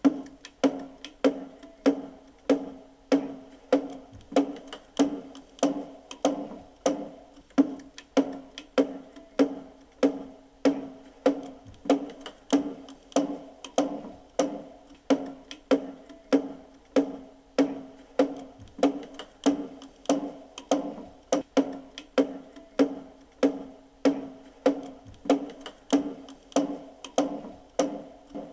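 Wooden mallet hammering a thick wood block in a steady rhythm, about three knocks every two seconds, each knock leaving a brief woody ring.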